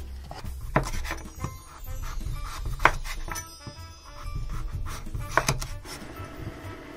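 Large kitchen knife chopping through raw kabocha squash and striking a wooden cutting board: three sharp knocks a couple of seconds apart, over background music.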